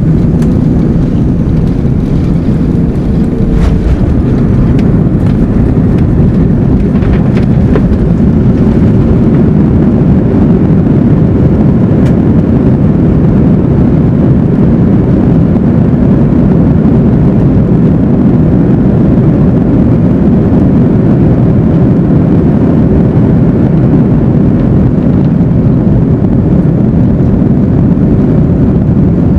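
Airbus A321 touching down and rolling out on the runway, heard from inside the cabin over the wing: a loud, steady roar of engine and runway noise.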